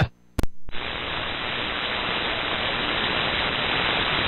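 Radio receiver static on the 11-metre CB band: a short click about half a second in, then a steady hiss that grows slightly louder.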